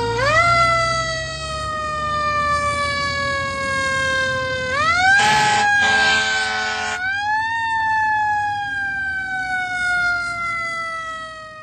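A siren rising quickly in pitch and then slowly falling, rising again about five seconds in and once more about seven seconds in before sliding down and fading away at the end.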